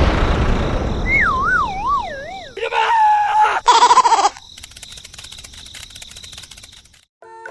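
Comic sound effects: a crash dying away, then a wobbling whistle that slides down in pitch, followed by two short squeaky tones and faint ticking.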